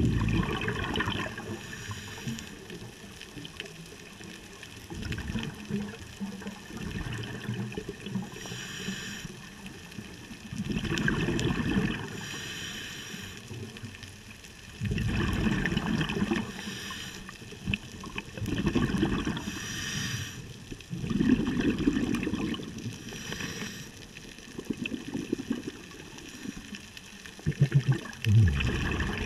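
Scuba diver breathing through a regulator underwater: a hiss on each inhale, then a surge of bubbling exhaust, repeating every few seconds.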